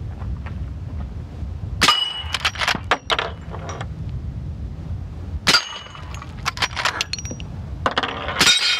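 Three suppressed shots from a .44 Magnum lever-action rifle firing heavy subsonic loads, each landing with a ringing clang on steel dueling-tree plates, spaced about three seconds apart. Between the shots there are smaller metallic clicks as the lever is worked.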